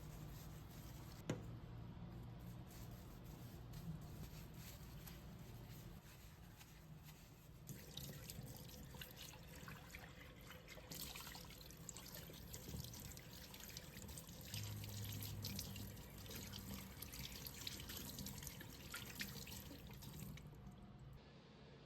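Faint water running and dripping at a kitchen sink, with many small splashes and a single sharper click about a second in.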